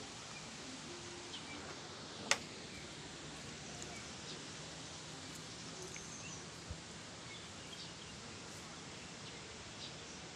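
Outdoor ambience: a steady background hiss with scattered faint bird chirps, and one sharp click about two seconds in.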